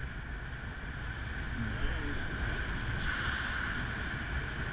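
Wind rushing over the microphone of a pole-mounted action camera during a paraglider flight: a steady rumbling rush with a hissing band that grows stronger about three seconds in.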